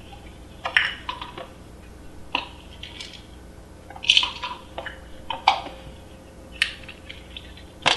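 Pill bottle being handled: a series of separate light clicks and clinks, irregularly spaced, the loudest a little after four seconds in and again about a second later.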